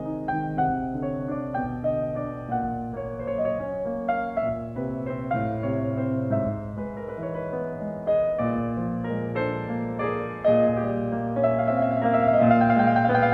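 Background piano music, getting a little louder near the end.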